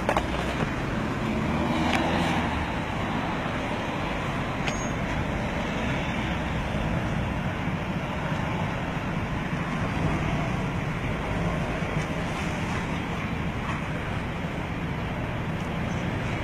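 Steady road traffic noise, with a couple of faint clicks in the first few seconds.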